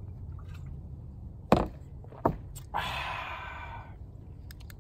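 Two sharp thumps less than a second apart, then a breathy exhale lasting about a second after a swig of whiskey.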